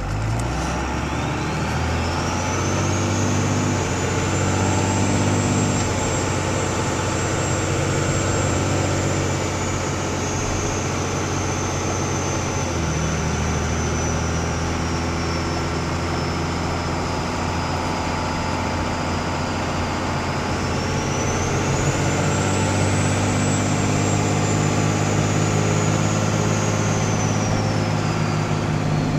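2001 Dodge Ram's Cummins 24-valve inline-six diesel run up and held at raised revs, with a loud turbo whistle from its Super B turbocharger. The whistle rises sharply in the first seconds, sinks slowly, then climbs again about two-thirds of the way through before falling away.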